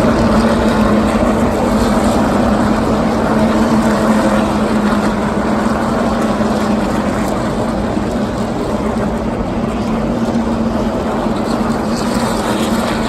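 A field of NASCAR stock cars' V8 engines running together in a steady, loud drone with a held low pitch, easing off a little over the last few seconds.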